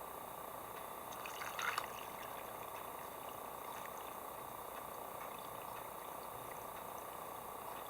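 A short pour or splash of liquid about a second and a half in, over a steady low hiss.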